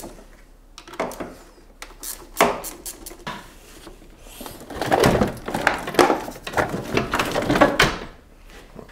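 Hand-tool work at a car battery in an engine bay: a few separate sharp metal clicks and knocks, then from about five seconds in a denser, louder run of clicking and rattling as the battery hardware is worked loose.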